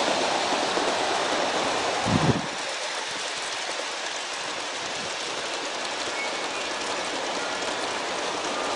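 G-scale model train rolling on outdoor track, its wheels running over the rails. About two seconds in there is a single low thump, after which the rolling sound drops back to a quieter, steady hiss.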